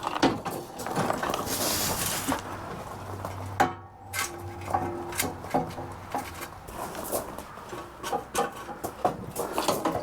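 Irregular metallic clanks, knocks and rattles as a riding mower's cutting deck is lifted and propped for blade work.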